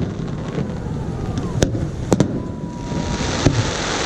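Aerial fireworks going off: several sharp bangs, with a thick crackling from the later shells from about three seconds in.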